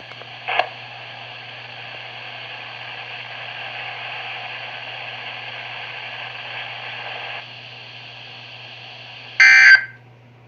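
Midland WR120EZ weather radio playing dead air between broadcasts: a steady hiss over a low hum, which drops in level about seven seconds in. Near the end comes a short, loud electronic burst, and then the sound cuts out.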